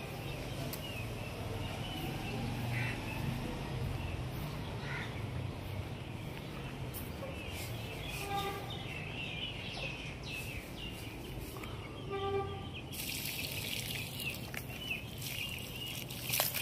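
Outdoor garden ambience: small birds chirping over a low steady hum, with two short pitched calls in the middle. From about three-quarters of the way through, water pours from a plastic jug onto the soil at a tree's base with a steady hissing splash.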